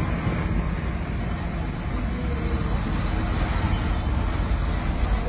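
Steady low rumbling background noise with no distinct events, of the traffic-like kind.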